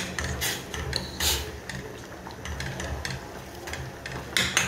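Wooden spatula stirring fettuccine in a stainless steel pot of water, scraping and clacking irregularly against the pot, loudest near the end, over a low steady rumble. The pasta is being stirred so it won't stick.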